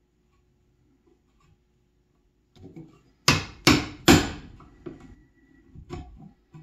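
Metal hammer striking the plastic handle of a chisel three times in quick succession, a little over three seconds in, chopping the chisel down into softwood to remove waste from a joint, followed by a couple of lighter knocks.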